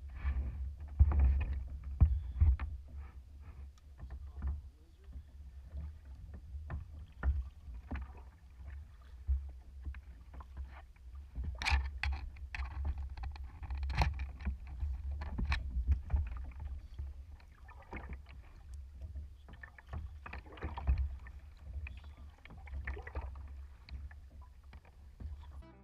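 Kayak being paddled with a double-bladed paddle: irregular splashes of the blades in the water and knocks against the hull, over a steady low rumble.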